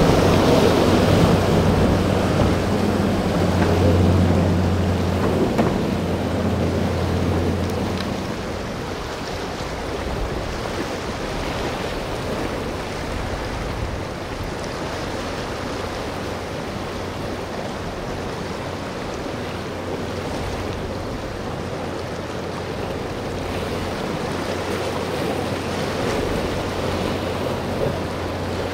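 Waves and wind noise on the microphone, with the low drone of a boat engine for the first several seconds that fades away about eight seconds in and comes back faintly near the end.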